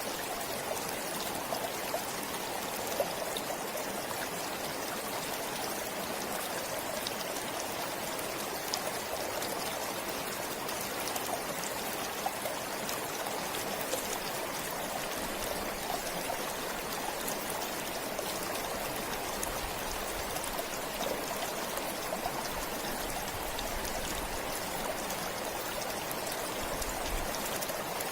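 Forest stream flowing steadily, a continuous rush of water with fine trickling and splashing on top.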